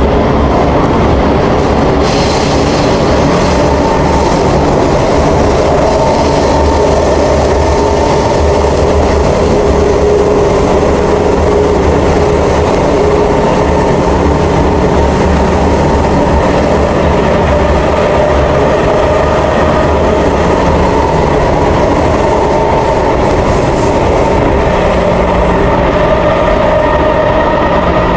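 Kawasaki Heavy Industries C151 metro train running in a tunnel, heard from inside the car: a steady, loud rumble of wheels on rail with hiss and a few whining tones holding their pitch, and the higher hiss picking up about two seconds in.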